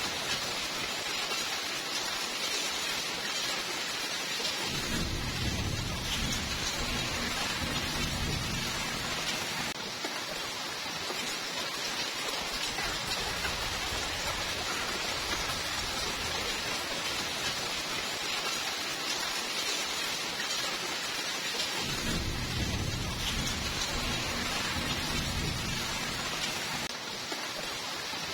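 Steady rainfall hiss with two low rolls of thunder, the first about five seconds in and the second past the twenty-second mark, each rumbling for about four seconds.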